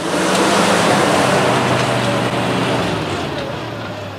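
Old pickup truck driving by on a gravel road: engine running with a steady rush of tyre and road noise. The engine note drops to a lower pitch about a second in.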